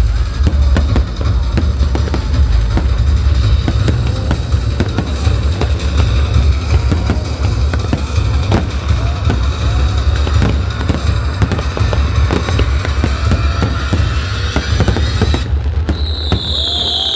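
Fireworks going off in rapid succession, many bangs and crackles, over loud music with a heavy bass. About a second and a half before the end the bass drops away and a high, slowly falling tone starts.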